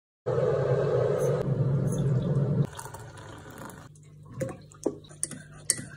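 Liquid pouring into a mug for about two seconds, then a few light clinks of a spoon against the mug.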